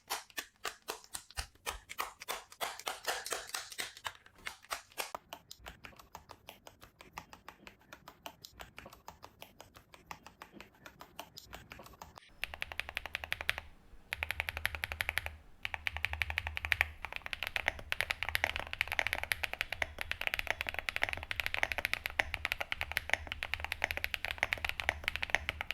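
Mechanical keyboard fitted with Gateron Sillyworks Type R tactile switches (POM stems, PA66 housings) being typed on: spaced-out separate keystrokes for the first half, then faster, louder continuous typing with a lower thud from about halfway.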